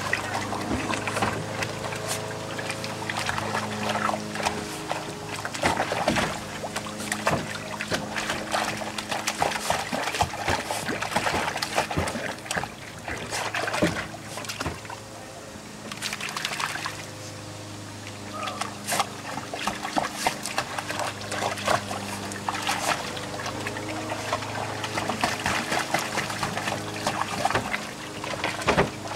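Water splashing and sloshing in a plastic kiddie pool as a Jack Russell terrier wades and paws through it, in irregular quick splashes. A steady low hum runs underneath, dropping away for a few seconds about halfway through.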